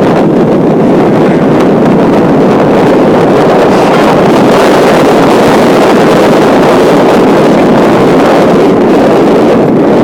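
Loud, steady wind rush on the microphone from riding at speed, mixed with the vehicle's engine and road noise.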